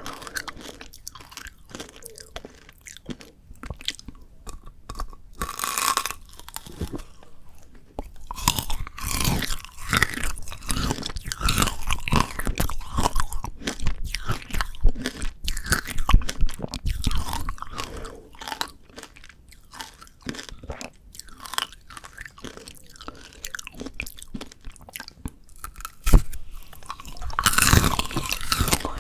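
Close-miked crunching and chewing of frozen shine muscat tanghulu: the hard sugar candy shell cracks and crackles between the teeth along with the frozen grapes, in irregular bursts that grow louder about a third of the way in, with a sharp single crack near the end.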